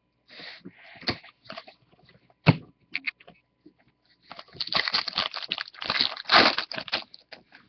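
Trading card pack's foil wrapper crinkling as it is torn open, a dense crackle lasting about three seconds in the second half. Before it come a few scattered clicks and one sharp tap as cards are handled.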